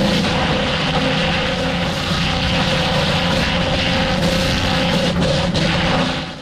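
Heavy forestry machine running under load: a steady engine drone with clattering and occasional knocks, fading out near the end.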